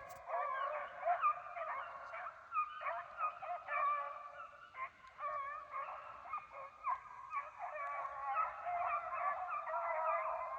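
A pack of beagles baying in chorus, many voices overlapping without a break, the sound of hounds running a rabbit.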